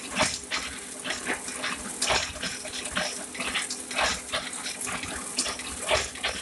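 Ryobi 3200CD offset printing press running: a steady hum under a constant hiss, broken by irregular sharp clicks and clatter.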